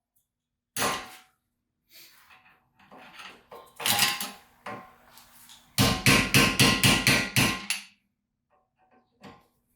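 Hammer blows on metal, staking the hub nut so it cannot back out: a single blow, a few lighter taps, another blow, then a quick run of about eight blows at roughly four a second, with a ringing metallic tone under them.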